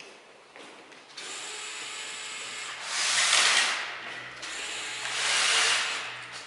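Cordless drill/driver running on the terminal screws of a bank of large electrolytic capacitors, with two louder surges about a second long, around three and five seconds in.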